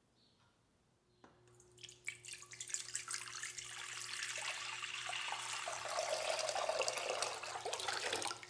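Water running from a kitchen tap, starting about a second in, growing louder and then shut off sharply near the end.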